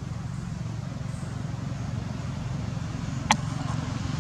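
Low, steady engine rumble that slowly grows louder, with one sharp click about three seconds in.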